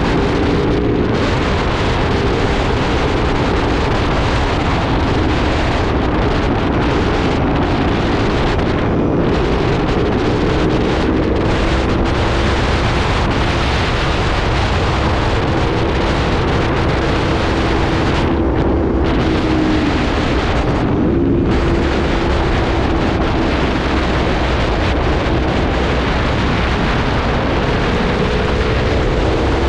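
Aprilia 1100 V4 motorcycle engine running hard at a fairly steady pitch, with heavy wind rushing over the microphone. The engine note dips briefly and climbs back about two thirds of the way through.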